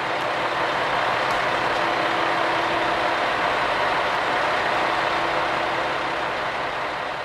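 KiHa 120 diesel railcar running, its diesel engine giving a steady mechanical drone that swells about a second in and eases off near the end.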